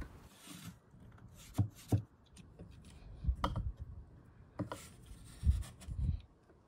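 Hands handling a wooden inkle loom and its weaving sword: about six soft wooden knocks and taps over light rubbing of yarn and wood.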